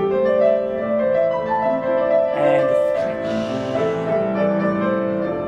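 Slow piano music with long, held notes and chords.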